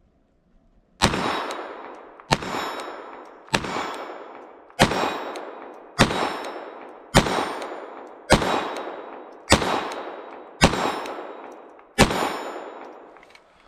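Glock 44 .22 LR pistol firing ten shots at a steady pace, about one every 1.2 seconds. Each crack is followed by a long ringing decay.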